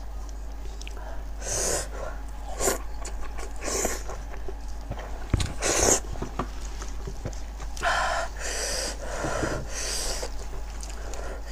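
Close-up wet eating sounds from someone eating braised sheep's head meat: chewing and sucking, with sharp breaths through the nose. They come in short, separate bursts about once a second, the loudest about six seconds in.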